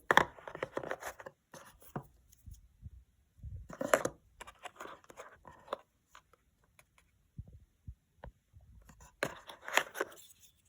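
Packaging and gear being handled during an unboxing: rustling, scraping and small clicks in three spells, at the start, about four seconds in, and again near the end.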